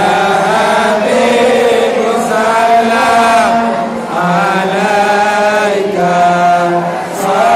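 A group of male voices chanting in unison, an Islamic devotional chant for the Prophet's birthday (Maulid). The voices hold long notes in phrases, with brief breaks for breath.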